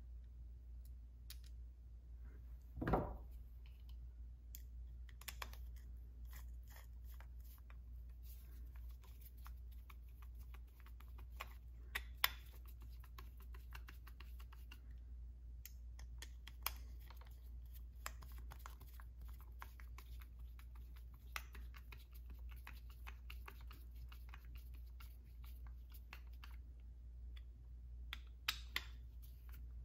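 Faint clicks and scrapes of a screwdriver turning the two T20 screws that hold the M-Tronic control unit onto a Stihl Walbro HD carburetor, with small metal parts handled, over a steady low hum. A brief louder bump about three seconds in.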